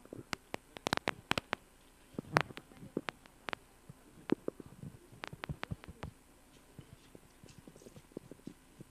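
A run of irregular sharp clicks and knocks, thickest in the first six seconds and fainter after.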